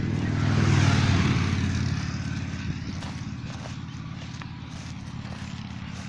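An engine's steady drone that swells to its loudest about a second in and then slowly fades.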